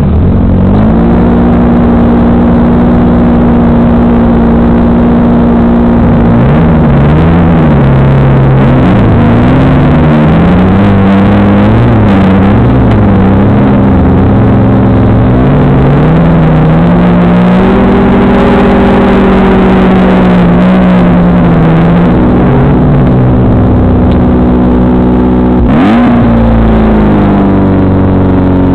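Off-road buggy engine running loud and close, heard from on board, its revs rising and falling again and again under throttle. Near the end there is a single sharp knock.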